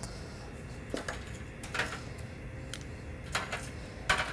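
Four short clinks of kitchen utensils against dishes, a second or so apart and loudest near the end, as fried shrimp are plated.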